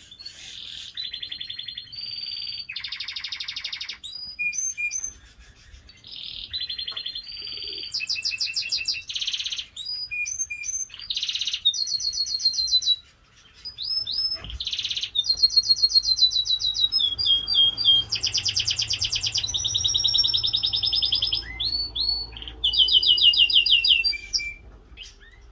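Domestic canary singing a long song of rapid trills and rolls, each phrase a quickly repeated note, switching from one phrase to the next with brief pauses.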